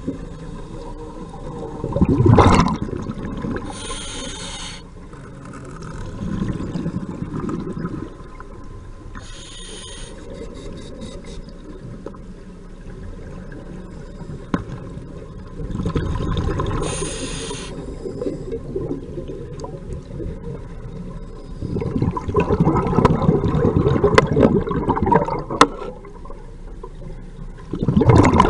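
Muffled underwater sound: water moving and bubbling in low swells, with a few brief hisses.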